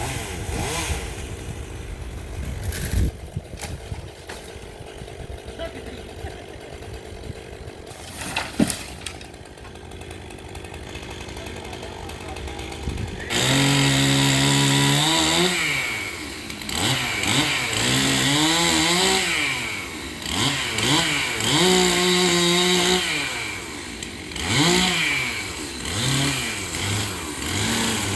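Chainsaw engine coming in loud about halfway through and revved up and down again and again, its pitch climbing and falling with each burst of throttle. Before it, a quieter stretch with a couple of sharp knocks.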